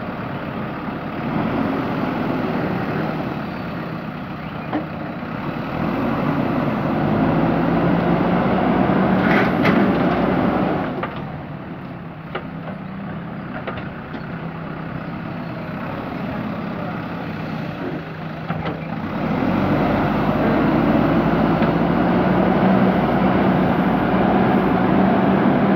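JCB backhoe loader's diesel engine running and working, rising and falling with load, with a few sharp metallic clanks about a third of the way in.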